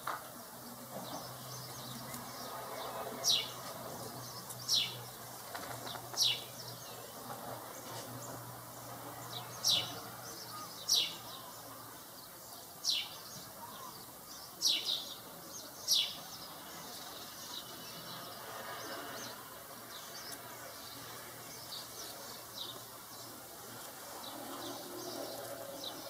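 A bird giving short, thin, high calls, each a quick downward sweep. There are about nine of them, a second or two apart, and they thin out over the last third.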